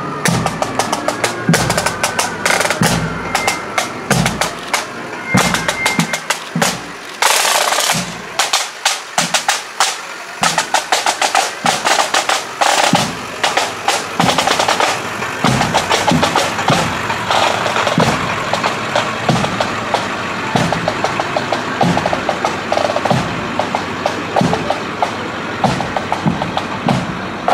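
Pipe band drum corps playing a marching cadence on drums alone: rapid snare drum rolls and strokes over a steady bass drum beat, with a loud roll about seven seconds in.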